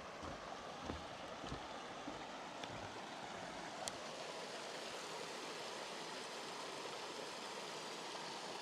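Steady rush of flowing water from a stream. Soft footsteps on the trail thud in the first couple of seconds, then the water sound fills in, a little stronger from the middle on.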